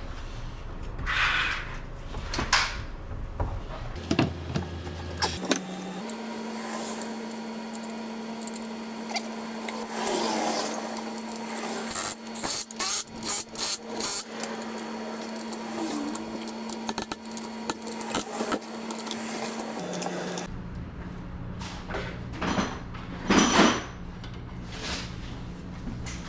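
Hand tools clinking and knocking against metal parts, with a quick run of sharp clicks about halfway through.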